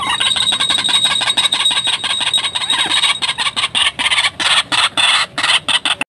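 A white-breasted waterhen caught in a snare flapping its wings and thrashing on wet ground in quick, irregular beats. The beats come in more broken bursts from about three seconds in. Under them runs a steady high-pitched ringing tone.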